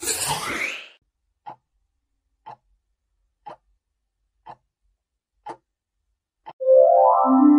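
A whooshing transition sound effect, then a countdown timer ticking once a second, six ticks. Near the end a loud rising electronic jingle starts, the answer-reveal sound.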